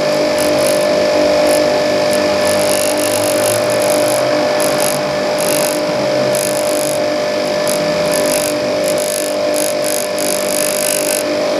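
Metabo DS 200 bench grinder running at speed with a steady hum, while a sharpened pencil held against the spinning wheel scrapes on and off with a high hiss as it marks high spots when checking the wheel for wobble.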